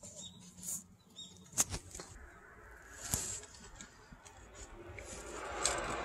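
Faint rustling and handling of a tree climber's rope and harness gear, with a few sharp clicks, the clearest about one and a half and three seconds in; the rustling grows louder near the end.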